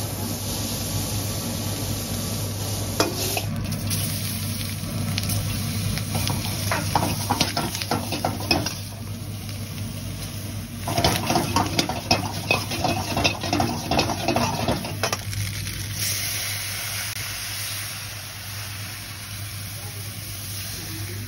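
Vegetables and then penne frying in a wok over a gas flame, with a metal spatula scraping and clanking against the pan in two rapid stretches in the middle, over a steady low hum.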